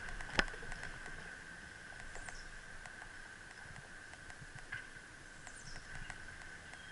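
Bicycle riding over a concrete street: scattered light clicks and rattles, with one sharp knock about half a second in, over a steady high-pitched hum. Two short, high, descending chirps come through, a few seconds apart.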